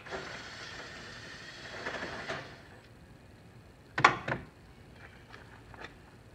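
Cordless drill running for about two and a half seconds, backing screws out of a car's front bumper cover. Two sharp knocks, the loudest sounds, follow about four seconds in, then a few faint clicks.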